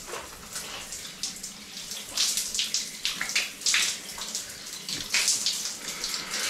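Water spraying from a Lorenzetti electric shower head and splashing onto a man's head and body as he wets his hair and rubs his face, in uneven gushes and splatters.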